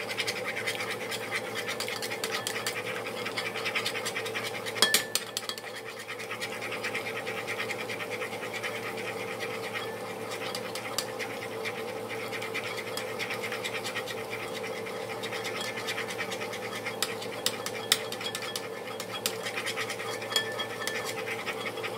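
Eggs being beaten in a bowl: a utensil whisking rapidly, scraping and clicking against the bowl in fast, even strokes, with one louder knock about five seconds in and a steady hum underneath.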